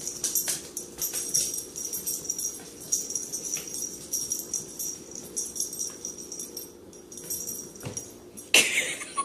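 Rapid jingling and clicking as a small white pet spins after its tail on a tiled floor, with a louder bump near the end.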